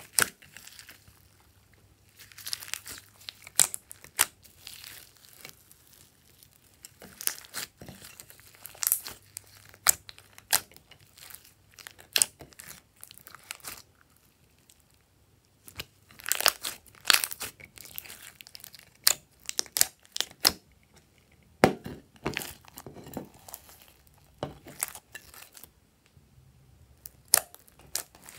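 Slime loaded with small foam beads being squeezed and kneaded by hand: irregular sticky pops, crackles and squelches, coming in clusters with short quiet gaps.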